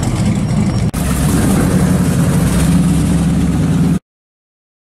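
Classic muscle car engines running as the cars drive slowly past, a loud, steady low engine note. The sound jumps abruptly about a second in and cuts out to silence for almost a second near the end.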